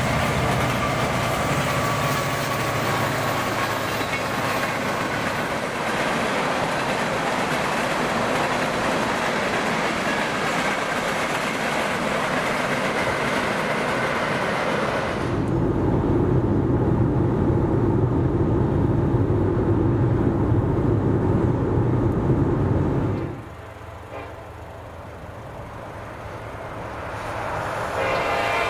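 A freight train of tank cars rolling past, steel wheels running on the rails, with a steady loud rumble. About halfway through it changes suddenly to a duller low rumble, which drops away later. Near the end a diesel locomotive's air horn sounds as the train approaches.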